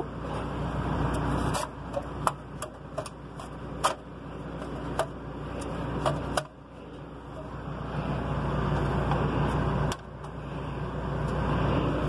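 Metal licence plate clicking and tapping against its metal holder as it is fitted onto a truck trailer, a quick run of light clicks in the first half, over a steady low engine hum.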